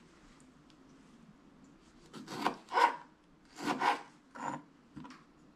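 Kitchen knife slicing cherry tomatoes on a plastic cutting board: about six short scraping cuts, mostly in pairs, starting about two seconds in.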